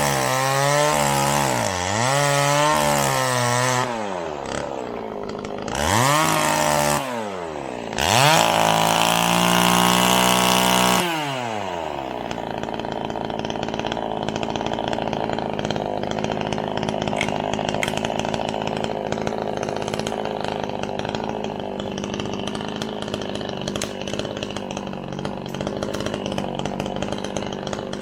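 Two-stroke chainsaw revving hard in several bursts, its pitch rising and falling. About twelve seconds in it drops to a steadier, lower running that continues to the end.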